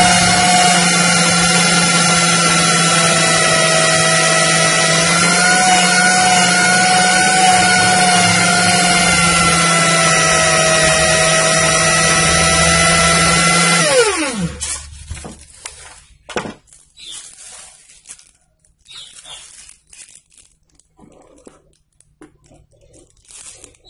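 Electric drill running steadily, spinning a metal gun barrel's muzzle against fine sandpaper to polish the crown: a steady motor whine over a scraping hiss. A little past halfway the drill is let go and the whine falls away as it spins down, leaving faint clicks and rustles of the barrel and sandpaper being handled.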